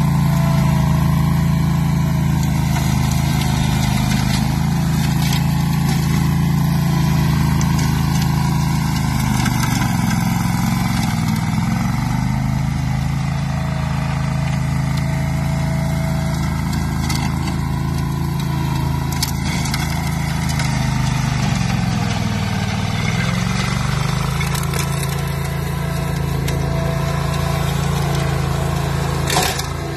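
AS-Motor AS 830 Enduro 14 hp ride-on brush mower running at working speed while mulching shrubs and tall grass. The engine note sags briefly twice and picks back up.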